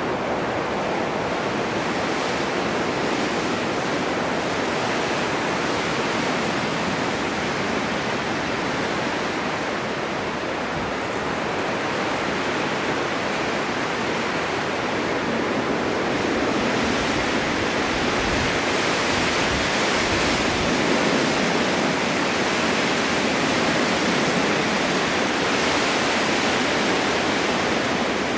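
Strong winter wind blowing steadily, a dense rushing noise that swells a little louder about halfway through.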